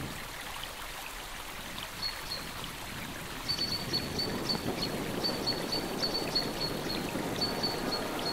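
Wind noise on a helmet-mounted action camera's microphone, getting louder about three and a half seconds in. Runs of short, high beeps at one steady pitch sound over it from about two seconds in.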